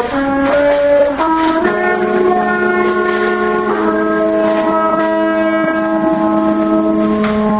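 Brass horns playing slow, long held notes together: a low note held steady from about two seconds in, with higher notes changing pitch every second or so above it.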